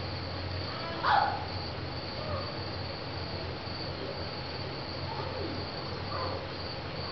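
Steady, high-pitched insect-like chirring over a low hum, with a short, loud sound about a second in.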